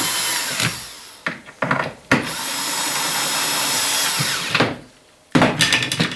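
A small electric motor running in short runs, like a handheld power tool: it winds down about a second in, blips twice, then runs steadily for about two and a half seconds and stops. Sharp knocks and handling clatter follow near the end.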